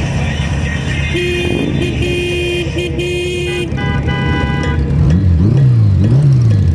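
Motorcycle engines idling, with a horn sounded in three toots about a second in and a second, higher multi-tone horn briefly after. Near the end engines are revved up and down several times.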